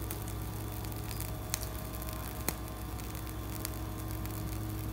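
Steady low electrical hum with light background hiss, and a couple of faint clicks about one and a half and two and a half seconds in.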